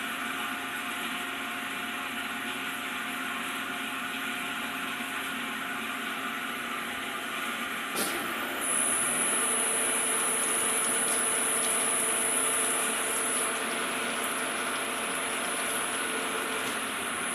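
Hamai 60SP CNC gear hobbing machine running with a steady mechanical hum. About eight seconds in there is a sharp click, and a thin high-pitched whine then joins and holds until near the end.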